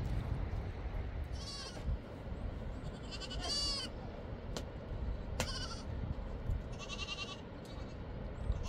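Goats bleating, about four wavering, fairly high calls a second or two apart, over a steady low rumble.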